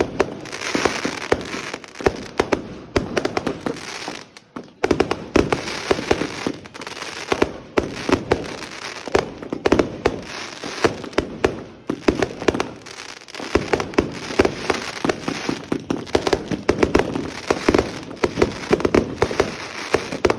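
Fireworks going off in long, rapid strings of sharp cracks and pops, like machine-gun fire, with brief lulls about four and a half and twelve seconds in.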